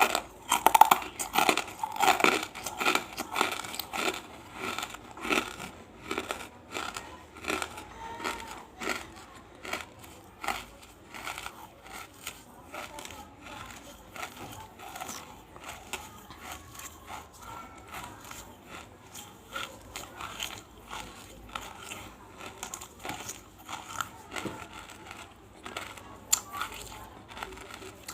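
Close-up mouth sounds of someone crunching and chewing big pieces of banslochan (tabashir, the chalky silica from bamboo), with many sharp, brittle crunches. The crunching is loudest and densest in the first few seconds, then goes on as lighter, scattered crackles.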